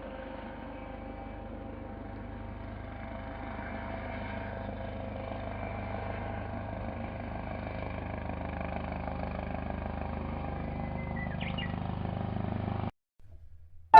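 A vehicle running steadily, slowly growing louder, then cutting off abruptly about a second before the end.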